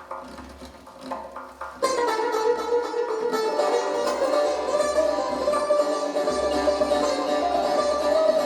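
Persian traditional ensemble music led by plucked strings: a soft, sparse passage, then about two seconds in the full ensemble comes in suddenly and much louder, with held melodic notes over the strings.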